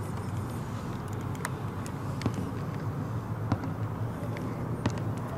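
Steady low outdoor rumble with a few faint, short clicks and taps as multimeter test leads are handled against a battery pack.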